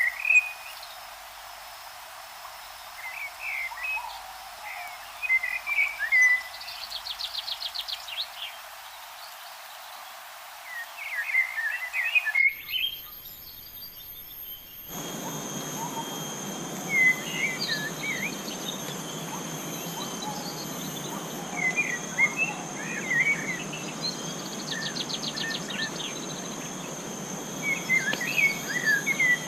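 Forest ambience: birds calling in short chirping phrases that recur every few seconds, with a rapid trill twice. About halfway through, the background changes abruptly and a steady high insect whine joins.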